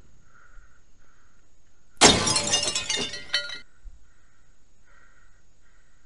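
A sudden loud crash like shattering glass, starting about two seconds in, with bright ringing fragments. It lasts about a second and a half and cuts off sharply.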